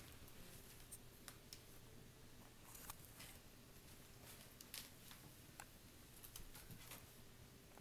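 Faint, scattered scratches and ticks of a Siberian kitten's claws catching and plucking at a woven rush chair seat as it plays.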